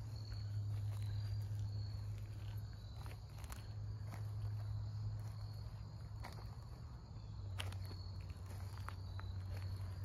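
Footsteps on dry wood-chip and straw mulch, irregular crisp steps spread through, over a steady low rumble. Insects chirp high and thin in the background.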